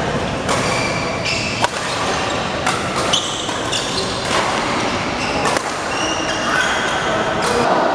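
Badminton rally: rackets striking the shuttlecock in a string of sharp hits, about a second apart, with shoes squeaking briefly on the court mat. The hits ring in the reverberant sports hall.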